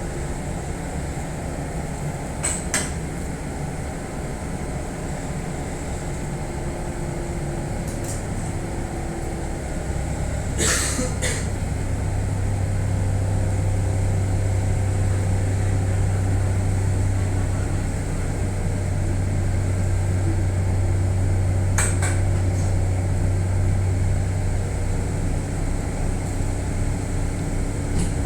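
Kintetsu commuter train standing with a steady low hum from its equipment, which grows louder about ten seconds in, as the train readies to resume running. A few sharp clicks and knocks sound over it, the loudest about ten seconds in.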